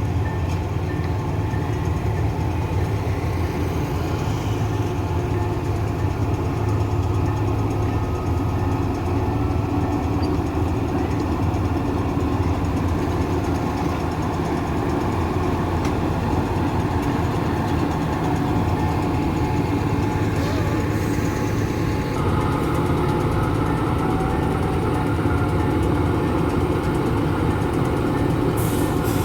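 Diesel engine of Sri Lanka Railways S8 diesel multiple unit 839 idling steadily with a low hum, its tone shifting slightly about two-thirds of the way through.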